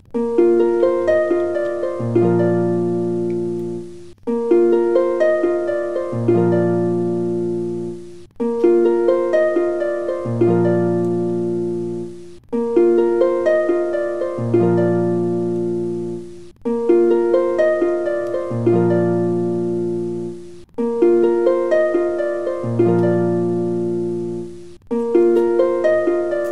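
Background music: a gentle harp-like plucked melody, a short phrase of notes that loops about every four seconds.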